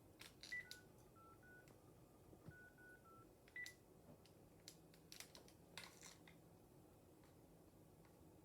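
Phone keypad being dialed: a quick run of about eight short, faint key beeps at a few different pitches, then scattered button clicks.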